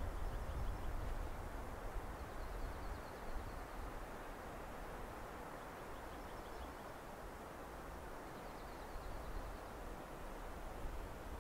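Steady outdoor wind noise with a low rumble that eases after the first couple of seconds, and a small bird's faint high trill repeating about four times.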